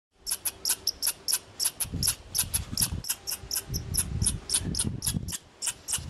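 A small animal calling in rapid, high-pitched chirps, about five or six a second, keeping a steady pace. A low rumble comes and goes twice underneath.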